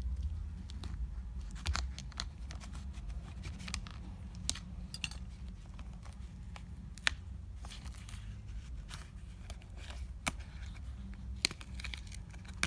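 Small hand tools clicking and scraping against an iPad mini 2's glass and frame while the adhesive holding the digitizer is worked loose: scattered light ticks with a few sharper clicks, over a faint low hum.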